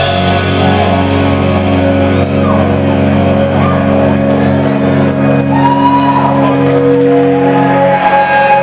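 Live rock band playing loud, with electric guitars and bass holding long ringing notes and a few sliding pitch bends, and only scattered drum hits.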